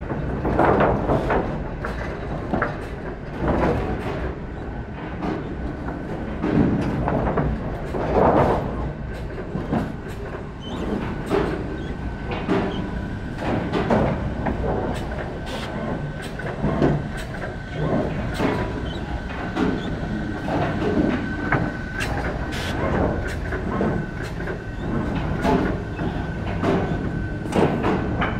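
Automated board-handling and feeding line on a wood-processing machine running: planks knocking and clattering on the conveyors and feed rollers, irregular clacks over a steady machine rumble. A thin steady high tone joins about twelve seconds in.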